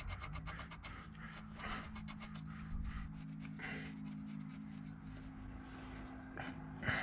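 A ratchet wrench clicking rapidly for about a second as a bearing-cap bolt under the T-25 engine is run in. Then light scraping and handling of metal parts, over a steady low hum.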